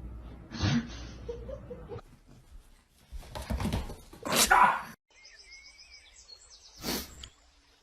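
A dog barking in a few short, separate barks.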